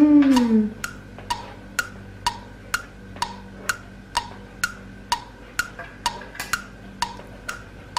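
Steady clock-like ticking, about two ticks a second, each tick with a short hollow ring. A brief falling hum of a voice at the very start.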